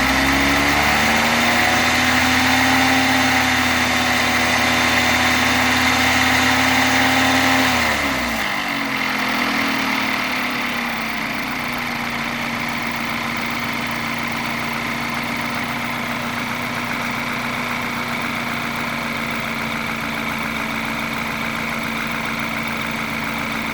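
BMW 520i's turbocharged four-cylinder engine held at raised revs, then dropping back to a steady idle about eight seconds in, with a steady high tone over it throughout. The noise comes from a defective balance shaft in the oil pump, though it seems loudest at the exhaust camshaft.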